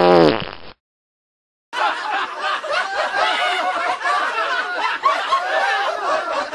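A brief falling tone, then a second of silence, then a large audience laughing.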